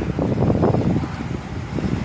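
Hurricane Dorian's gusting wind buffeting the microphone: a loud, uneven low rumbling rush that swells and dips with the gusts.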